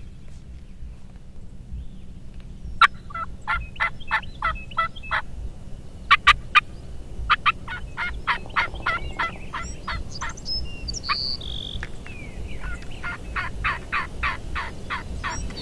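Turkey yelping: several runs of quick, evenly spaced notes, with a couple of short, higher held notes in the middle.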